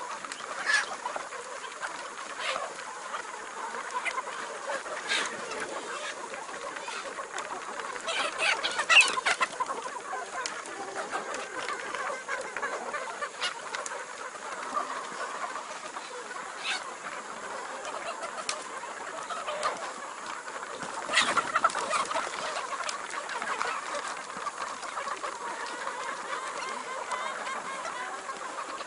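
A flock of chickens clucking steadily, with scattered sharp clicks and a couple of louder, sharper sounds about nine and twenty-one seconds in.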